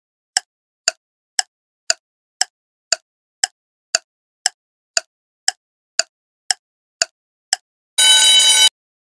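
Countdown-timer sound effect: a clock ticking about twice a second, then a short alarm-clock ring about eight seconds in as the timer reaches zero.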